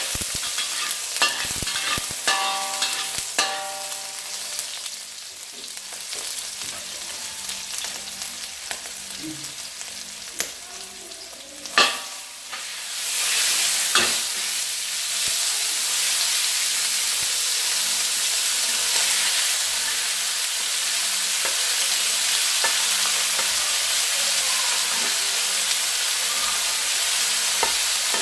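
Chopped garlic and chilli sizzling in hot oil in a metal wok, with a metal ladle clicking and scraping against the pan. About twelve seconds in there is a loud clatter as the chopped raw beef and pork go in, and from then on the frying is a louder, steady sizzle.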